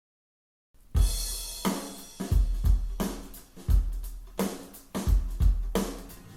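Music playback drops out to silence for under a second, then a drum kit intro starts alone: kick and snare hits with cymbals, about every 0.7 s, each ringing out before the next.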